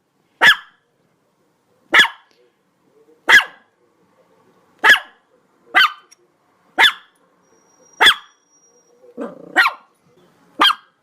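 A dog barking in single, sharp barks, nine in all, spaced about one to one and a half seconds apart, with a brief low sound just before the eighth bark.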